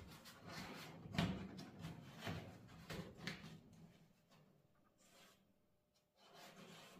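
Faint irregular scraping and rustling of a cardboard template being handled and pressed against a car body's bare sheet-metal floor by a gloved hand. The strokes are strongest in the first few seconds, die down after about four seconds, and one more comes near the end.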